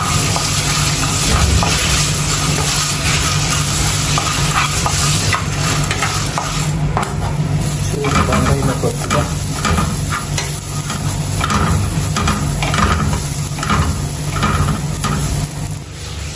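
Wooden spatula stirring and scraping whole dried red chillies and spice seeds, then grated coconut, as they roast in a non-stick frying pan, over a steady hiss. The scraping strokes come in quick repeated passes, most distinct in the second half.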